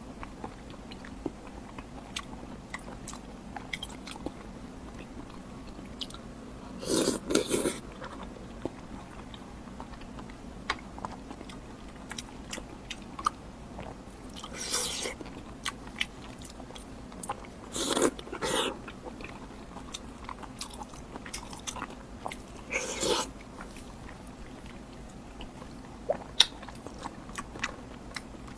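A person chewing and biting food close to the microphone, with many small wet mouth clicks and four louder crunching or slurping bursts, each under a second.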